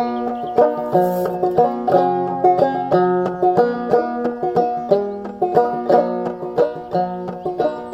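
Five-string banjo played clawhammer style in 3/4 time: a struck melody note followed by two 'ditty' brushes and drop-thumbs on the fifth string, in a steady bum-ditty-ditty rhythm, with the chords changing along the way. The banjo is in double C tuning lowered to about B flat.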